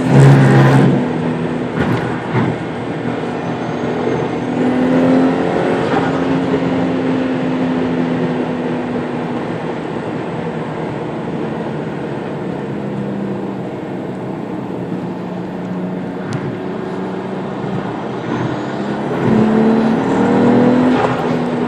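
Toyota Mark II's 1JZ-GT turbocharged straight-six running under load while it is checked for engine knock. The engine note sags slowly and climbs again near the end.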